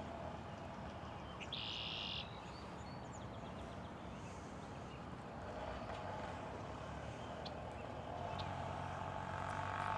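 Outdoor evening ambience with a steady low background hum. A short, high, buzzing call sounds once, about a second and a half in, and a vehicle grows louder near the end.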